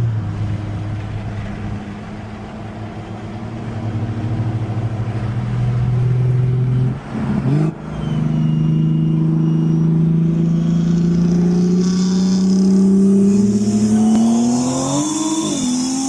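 Car engine held at a steady pitch, then a quick gear change about seven seconds in that brings higher revs, and a hard full-throttle pull with the pitch rising steadily and another shift near the end, as in a high-speed roll race. A rushing hiss grows over the engine during the pull.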